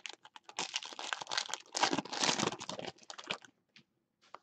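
Foil wrapper of a trading card pack being torn open and crinkled by hand, a dense crackling that stops about three and a half seconds in, followed by a few faint ticks.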